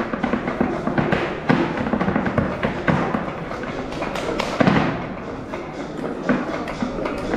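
Live music for a Catalan folk dance, with many short, irregular thumps and taps.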